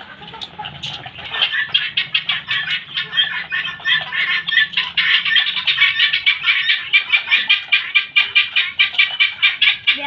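Guineafowl giving a rapid, harsh, evenly repeated cackle of about five calls a second, starting about a second and a half in and growing louder.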